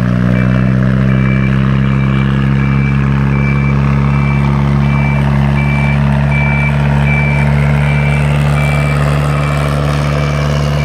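Lifeboat launch tractor's engine running steadily, with its warning beeper sounding a short high beep about every two thirds of a second.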